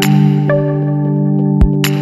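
Background music: held chords with shifting melody notes and a few sharp percussion hits.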